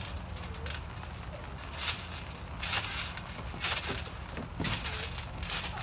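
Trampoline bouncing on a wet, soap-covered mat: sharp thumps of feet landing about once a second.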